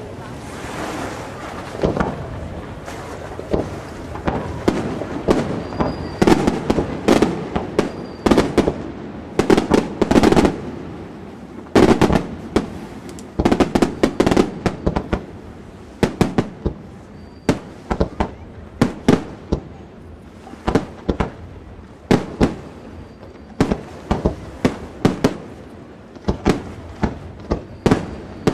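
Aerial firework shells bursting: a long run of sharp bangs starting about two seconds in, packed densely together through the middle, then separate reports about once a second.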